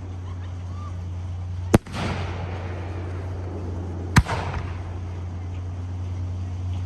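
Fireworks shells bursting at a display: two sharp bangs about two and a half seconds apart, each trailing off in echo, over a steady low hum.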